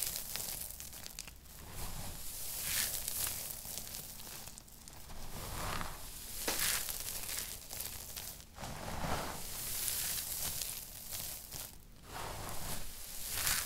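Dry crushed soap crumbs being scooped and squeezed by hand, crunching and rustling in a series of irregular swishes every second or two.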